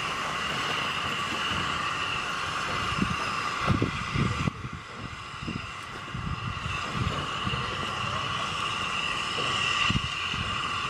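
SR U Class 2-6-0 steam locomotive moving slowly at low speed, with a steady hiss of steam over low, irregular rumbling. The hiss drops away about halfway through and then builds again.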